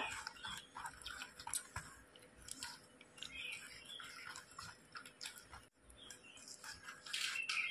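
A hand squishing thin gram-flour batter in a steel bowl: faint, irregular wet squelches and clicks, a little louder near the end.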